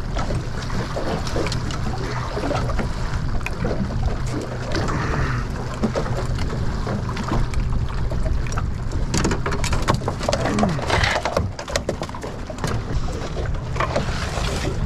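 Steady low rumble of wind and water around a small skiff, with a cluster of knocks and rattles about nine to eleven seconds in as a sheepshead is worked off the hook with a dehooker and handled on the deck.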